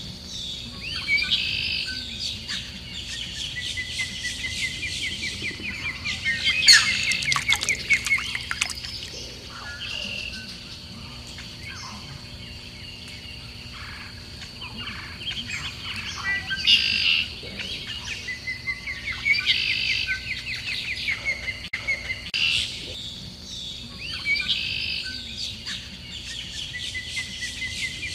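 Small songbirds chirping in short phrases that recur every few seconds, with a fast trill about six seconds in.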